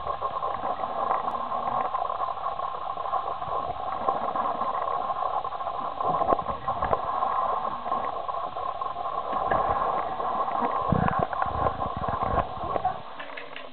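Steady background hum with scattered light knocks and bumps; the hum cuts off about 13 seconds in.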